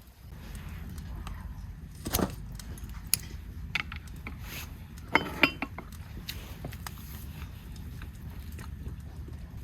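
Scattered sharp clinks and knocks of metal or glass, a pair close together about five seconds in, over a steady low rumble.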